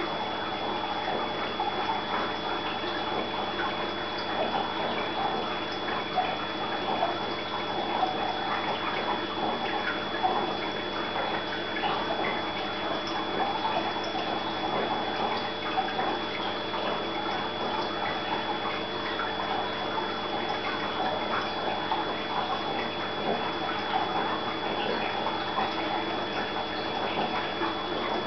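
Steady trickling and bubbling of aquarium water, with small ticks throughout and a faint high steady tone.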